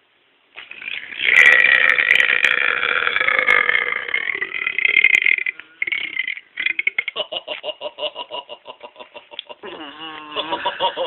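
A person belching loudly and at length. One long, rough belch lasts about five seconds, then comes a short one, then a rattling, croaking belch that breaks into a wavering voiced tone near the end.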